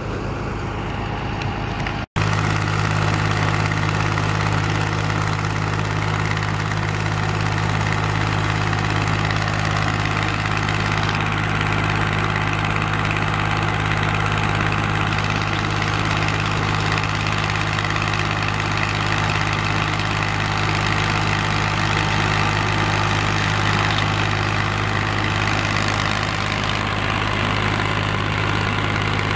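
A portable screening plant and a Komatsu PC210 excavator running steadily at work: a deep, even machine hum under a constant rattle from the vibrating screen and conveyor. There is a brief dropout about two seconds in.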